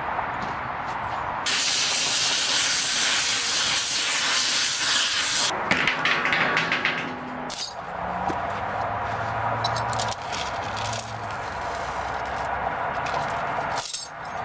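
A loud steady hiss, like air escaping under pressure, starts about a second and a half in and lasts about four seconds. It gives way to a rougher rushing noise, then a few sharp metallic clicks and knocks.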